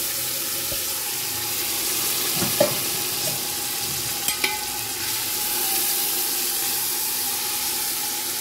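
Marinated chicken pieces sizzling steadily as they fry in hot oil with golden fried onions in a metal pot, with a few light knocks.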